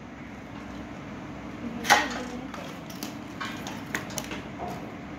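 One sharp clack about two seconds in, then a few lighter clicks and knocks, from the loose parts of a new sewing machine being handled, over a steady low hum.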